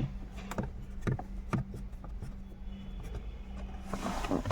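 A few light clicks and knocks from hands handling parts, over a steady low hum.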